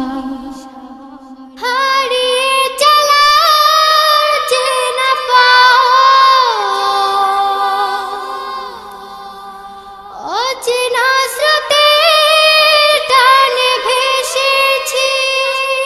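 Children's vocal group singing a wordless a cappella interlude of a Bengali devotional song: long held notes in layered harmony. The voices come in fully about a second and a half in and swoop upward again about ten seconds in.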